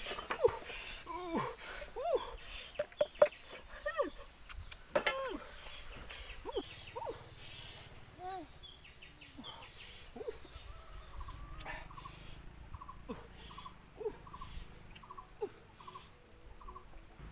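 Insects trilling steadily in a high, thin tone that shifts lower about eleven seconds in, with many short rising-and-falling animal calls, thickest in the first half.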